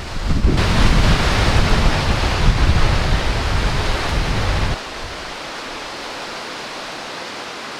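Storm rain, a dense even hiss, with wind buffeting the microphone. About five seconds in the wind rumble cuts off suddenly, leaving a quieter, steady hiss of rain.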